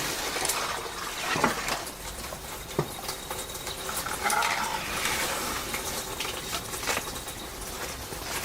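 Light, irregular scraping and tapping of a trowel working plaster or mortar onto a wall, with a longer scrape about four seconds in.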